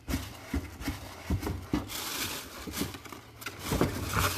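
Packaging handled and opened by hand: scattered taps and knocks, then rustling and scraping from about two seconds in.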